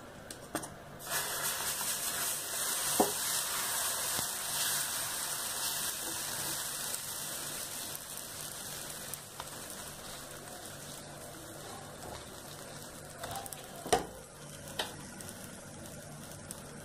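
Dosa batter sizzling on a hot griddle (tawa) as it is spread. The sizzle starts suddenly about a second in and slowly dies down, with a few sharp knocks from a utensil.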